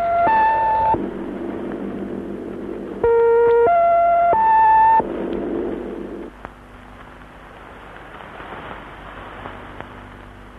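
Shortwave numbers-station signal received over the radio: three steady electronic tones, each about half a second, stepping up in pitch. The last two notes of one set sound at the start and a full set about three seconds in, over radio hiss and hum. After about six seconds only fainter static remains.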